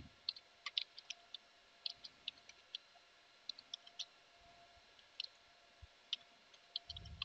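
Computer keyboard being typed on: faint, irregular key clicks in short runs with brief pauses between them.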